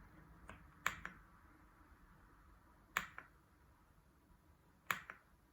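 Faint single key presses on the Aula F75 mechanical keyboard with LEOBOG Ice Vein linear switches, about every two seconds, used to cycle the RGB lighting modes. Each press is a sharp click followed by a softer one as the key is let go.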